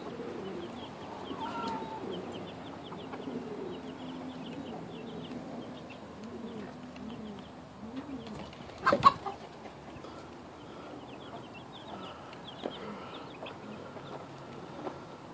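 Hens clucking softly in low, rounded calls, with a run of short high chirps over them. A single sharp knock comes about nine seconds in.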